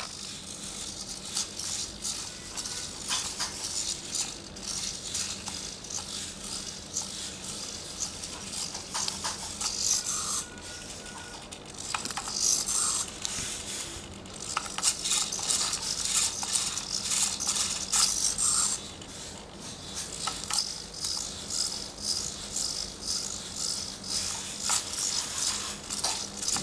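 Otto DIY+ biped robot dancing: its small servo motors whirr and rattle in short, irregular bursts, and its plastic feet click and tap on the tile floor.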